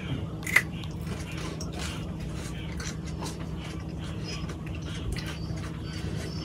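A person biting into a raw green chilli and chewing it, with one sharp crunch about half a second in followed by faint chewing clicks, over a low steady hum.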